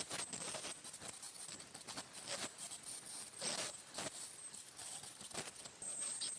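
Ultrasonic dental scaler tip working along a small dog's teeth to remove tartar: irregular clicking and scraping of the metal tip against tooth and tartar, with a thin high whine that comes in near the end.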